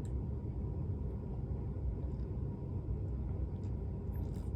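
A steady low rumble with a few faint clicks near the end.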